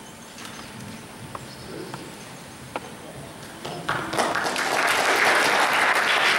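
Audience applause breaking out about four seconds in and swelling to a steady clapping. Before it, a hushed hall with a few faint knocks.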